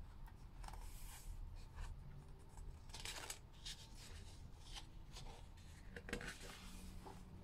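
Faint rustling and rubbing of a picture book's paper pages as they are handled, a few brief swishes spread over several seconds.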